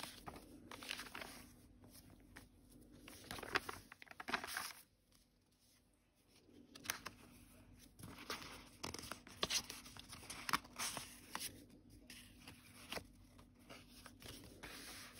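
Paper pages and card inserts of a handmade journal rustling and crinkling as they are turned and handled, in short, irregular rustles with a quiet spell about five seconds in.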